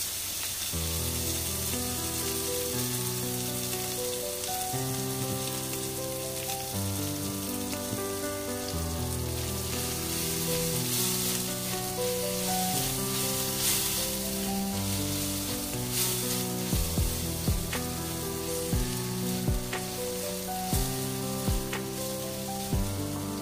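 Crushed garlic, ginger and dried chillies sizzling in oil in a wok over low heat, stirred with a silicone spatula; in the last third the spatula taps and scrapes against the wok more often. Background music with held notes plays underneath.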